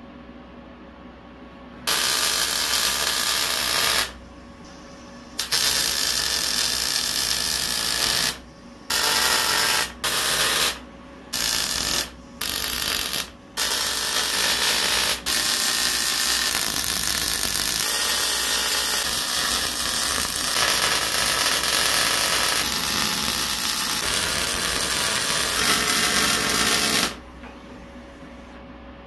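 Welding arc on the armrest tube end caps, running in a string of short welds followed by one long bead of about thirteen seconds.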